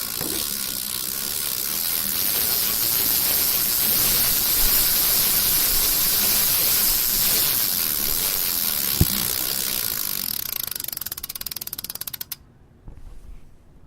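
Bicycle chain running over its sprockets: a steady whirring hiss with fine, fast ticking. The ticks grow more separate toward the end, and the sound stops abruptly about twelve seconds in. There is one sharp knock about nine seconds in.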